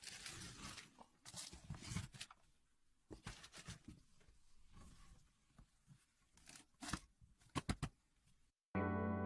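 Crinkling, tearing noises with several sharp clicks, the loudest a quick cluster near the end. Then a brief silence, and music comes in on a sustained chord.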